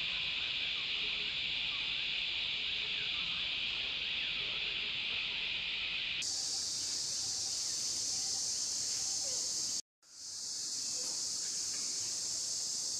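Steady, high-pitched drone of insects such as cicadas. About six seconds in it jumps abruptly to a higher pitch, and just before ten seconds it cuts out for a moment, then fades back in.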